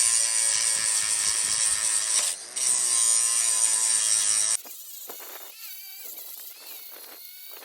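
Power tool cutting metal, running steadily with a brief break a little over two seconds in and stopping about four and a half seconds in. Fainter, irregular handling noises follow.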